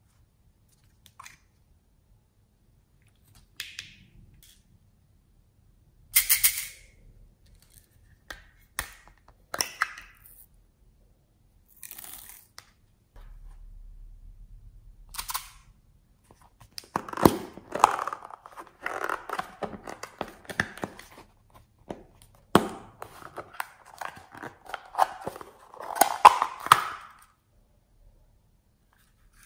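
Small plastic toys and containers handled close to the microphone. Scattered sharp clicks and taps come first, then a busier stretch of clicking and rattling through the second half.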